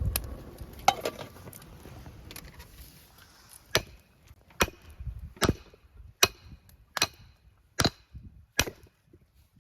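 Chopping: a blade strikes wood in seven sharp, evenly paced chops, about one every 0.8 seconds, starting a little before halfway.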